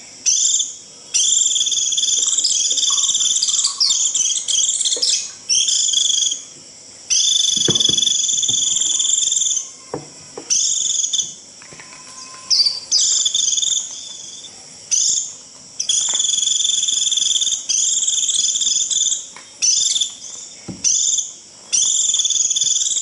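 White-eye (vành khuyên) giving its shrill 'rít' flock call, used to draw in other white-eyes. The call comes in repeated high-pitched bouts of half a second to about two and a half seconds, with short gaps between them.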